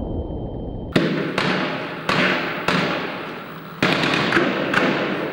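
Rifle gunshots: about eight sharp shots at uneven intervals, a few in quick succession near four seconds in, each followed by an echo.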